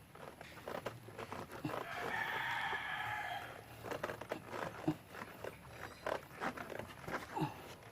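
A rooster crows once, for almost two seconds, with scattered light clicks and knocks around it.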